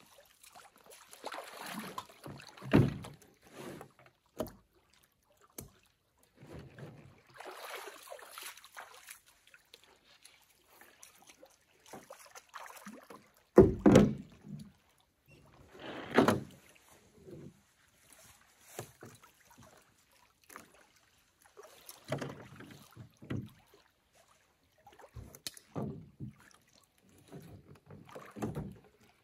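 A canoe being loaded and pushed off from shore: scattered thumps and knocks of packs and paddles against the hull, the loudest about three seconds in and near the middle, with splashing of feet wading in shallow water.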